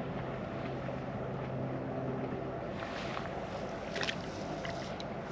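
Low, steady engine drone that stops about two and a half seconds in, followed by a few light clicks and knocks.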